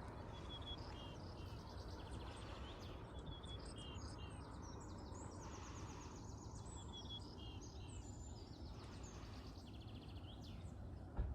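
Small songbirds chirping and trilling, with many quick overlapping calls, over a steady low background noise. A brief bump sounds near the end.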